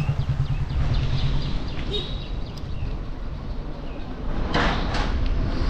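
Wind buffeting the microphone and tyres rolling on a paved road while riding a mountain bike, a steady low rumble. A few short bird chirps come through, and a brief rattle of clicks is heard about four and a half seconds in.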